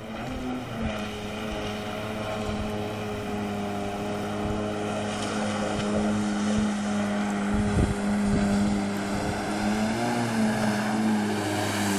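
Yamaha 800 jet ski's two-stroke engine running at a steady high speed across the water, a constant droning note that rises a little about ten seconds in and starts to drop near the end.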